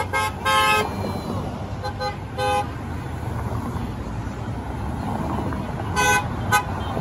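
Car horns honking from passing traffic: a few short toots at the start, two more around two seconds in, and more near the end, over the steady noise of cars driving through an intersection.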